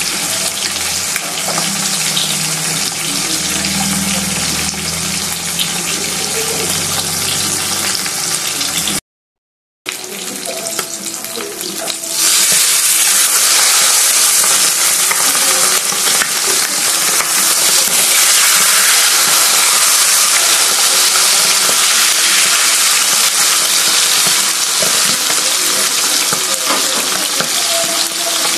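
Fish frying in hot oil in a pan: a steady sizzle, first from butterflied dried milkfish (dinaing na bangus). The sound breaks off for about a second about a third of the way in. After that, the sizzle of the next fish in the pan comes back and turns clearly louder a few seconds later.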